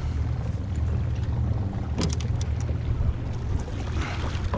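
A canoe moving under a small battery-powered trolling motor: a steady low rumble with wind on the microphone, and a brief knock about two seconds in.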